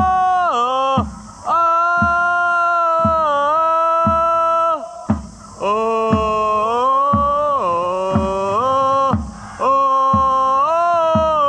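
Football supporters' chant: a drum beats steadily under a loud melody of long held notes that slide up and down between phrases.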